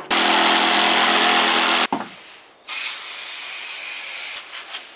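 A power tool run in two bursts. The first is loud, about two seconds long with a steady motor whine, and cuts off suddenly. After a short pause comes a quieter, hissier run of under two seconds.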